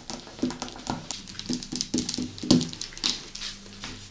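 Foil wrappers on small chocolate eggs crinkling as fingers peel them open, in quick irregular crackles.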